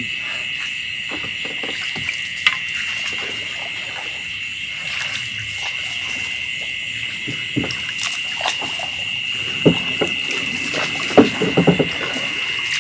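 Steady high-pitched night chorus of insects, with scattered light knocks and bumps that come more often in the last few seconds.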